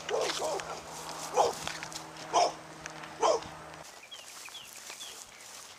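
Dog barking, four short barks about a second apart in the first few seconds, then stopping.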